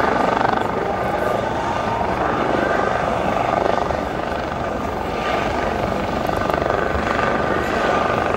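Coast Guard MH-65 Dolphin helicopter flying low, its rotor beating rapidly with a steady high whine over it.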